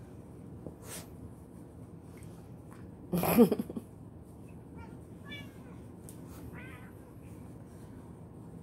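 A calico cat gives one loud, short yowl about three seconds in while a dog licks its face, followed by two faint short mews a few seconds later.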